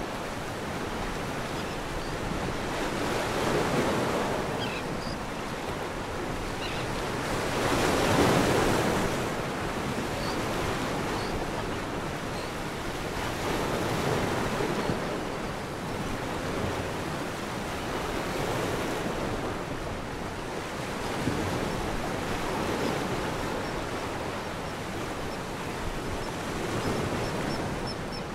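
Ocean surf: waves washing in over a reef shore as a steady rush of noise that swells and ebbs every few seconds.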